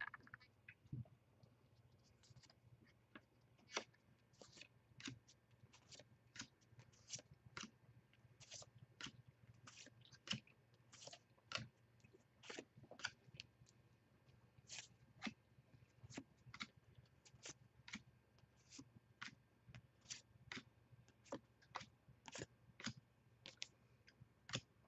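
Baseball cards being slid off the front of a handheld stack one at a time, a faint, short paper flick about twice a second, over a faint low hum.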